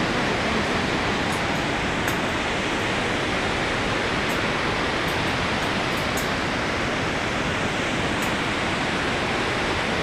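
Glacial meltwater torrent rushing through its rocky gorge below, a steady, unbroken rush of water, with a few faint ticks over it.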